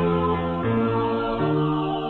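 Slow hymn music in long held chords, the chord changing three times.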